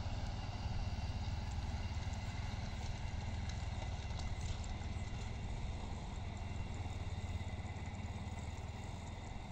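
Motorcycle engine running steadily as the bike crosses the railway tracks and moves off, heard as a low rumble that eases near the end.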